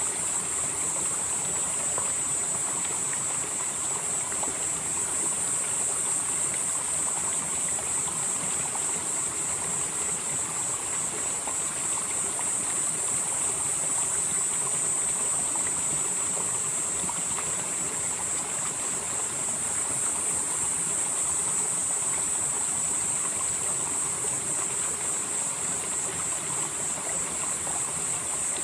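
Valley stream flowing steadily, an even rush of water with a steady high-pitched hiss over it.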